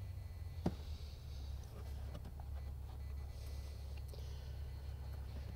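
Quiet handling of wires and a crimp connector, with one small sharp click about a second in and faint ticks and rustles, over a low steady rumble.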